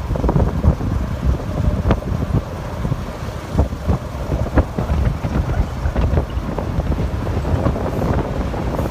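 Wind rumbling on the microphone over vehicle noise, with many short knocks and crackles scattered through it and no horn sounding.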